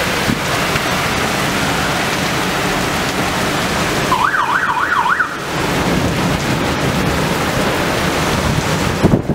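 Storm wind and heavy rain rushing steadily, with gusts buffeting the microphone. About four seconds in, a siren wails rapidly up and down for about a second.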